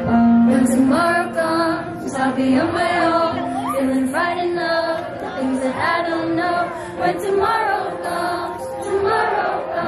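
Group singing to music, a choir-like song sung in phrases of held notes.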